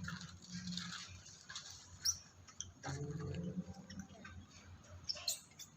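Scattered small clicks and patters, with two short high squeaks from a baby monkey, about two seconds in and near the end.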